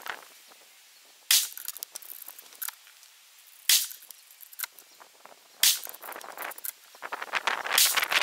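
Gunshots: three sharp reports about two seconds apart, with small clicks and taps between them and a busy clatter of clicks near the end.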